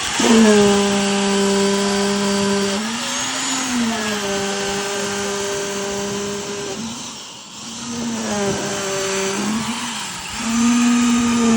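Concrete vibrator running with a steady, high-pitched motor hum. The hum dips and wavers a few times, fades briefly around the middle, then comes back up.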